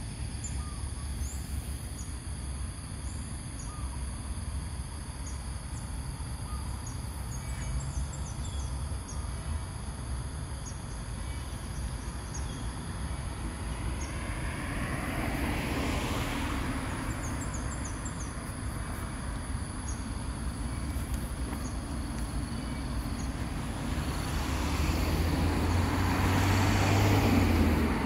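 Road traffic: a steady low rumble, with a vehicle passing about halfway through and another, louder one near the end.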